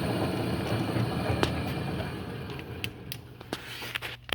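Powermatic Model 87 bandsaw winding down, its running noise fading steadily over about three seconds, with several sharp clicks and knocks in the second half.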